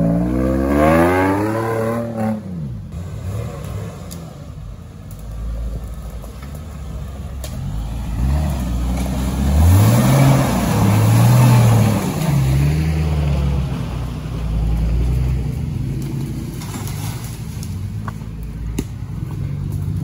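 Off-road vehicle's engine revving under load, rising in pitch over the first two seconds, easing off, then revving up again from about eight seconds in, loudest around ten to twelve seconds in.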